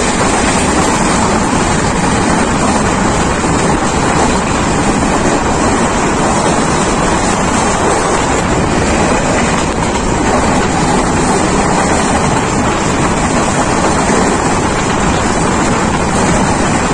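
Titas Commuter passenger train running at speed, heard from an open coach window: a steady rush of wheels on rail mixed with wind buffeting the microphone.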